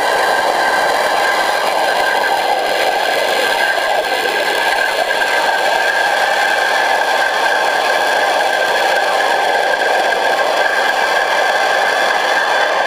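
Pressure-washer jets spraying underwater, heard through an underwater camera: a steady rushing noise with a constant high whine running through it.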